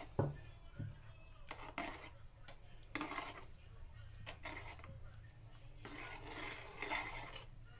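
Kitchen utensils and cookware being handled: two sharp knocks near the start, then several short bouts of scraping and rubbing.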